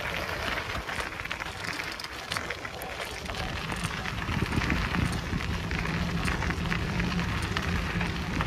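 Bicycle tyres rolling over a gravel forest path, a steady dense crackle of loose stones under the wheels, with a low rumble coming in about four seconds in.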